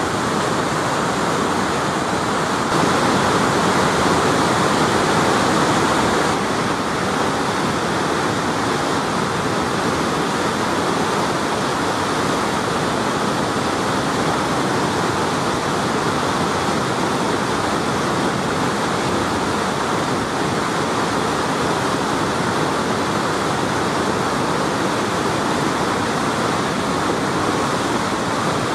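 Floodwater of the Winooski River pouring over and around a concrete dam: a steady, loud rush of churning whitewater, a little louder for a few seconds near the start. The river is in flood, close to cresting.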